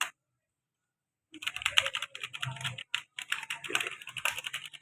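Rapid typing on a Cherry G80-1800 mechanical keyboard: a quick run of keystroke clicks that starts about a second in and keeps going.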